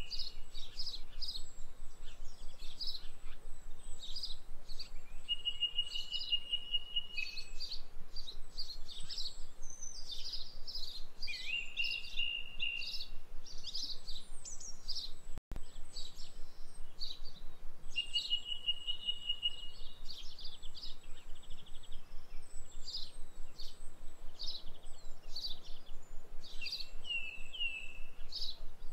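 Songbirds chirping and calling, with short rapid trills at one steady pitch repeating every few seconds. The sound cuts out for an instant about halfway through.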